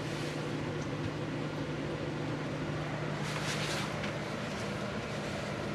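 Steady mechanical hum with a constant low tone over a soft even hiss, and a brief rustle about three and a half seconds in.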